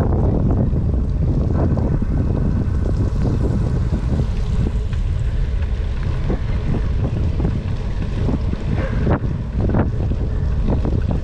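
Wind rushing over a bicycle's handlebar-mounted camera microphone while riding along a wet road, a steady low rumble, with scattered knocks and rattles from the bike.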